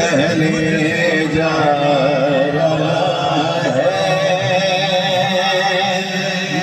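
A man sings a naat, an Urdu devotional poem, into a microphone over a PA. He draws out long, wavering melismatic lines over a steady low drone.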